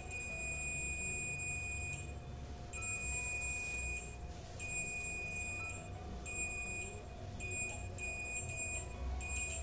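Digital multimeter in diode/continuity mode beeping with a steady high tone as its probe touches capacitors on a phone's circuit board. First one long beep of about two seconds, then a string of shorter beeps that start and stop as the probe moves. The beep marks a capacitor shorted to ground.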